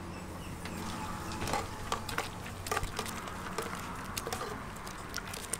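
Irregular clinks and knocks of a metal noodle strainer basket and utensils against a stainless steel pot as shredded greens are blanched in hot water, over a steady low hum.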